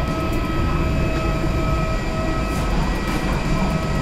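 Steady aircraft apron drone heard inside a boarding jet bridge: a low rumble with a steady high whine from the parked airliner and its ground equipment.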